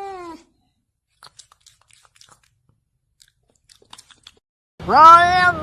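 Domestic cat meowing: a drawn-out meow fades out at the start, faint scattered clicks follow, and about five seconds in a loud, long meow begins, rising sharply at first and then held.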